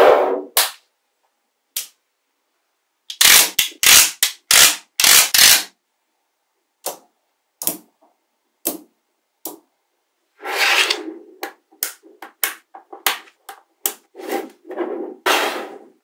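Small magnetic balls snapping and clacking together as slabs of them are pressed into place. The sound comes as sharp clicks and short clattering runs, the busiest about three to five seconds in and again in the last five seconds, with single clicks and silent gaps between.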